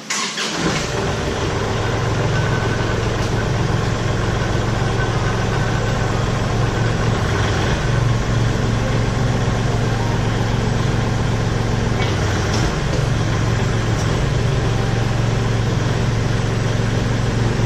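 Kubota L3901 tractor's three-cylinder diesel engine running steadily, coming in abruptly at the start, while it drives the backhoe hydraulics that raise the boom and bucket.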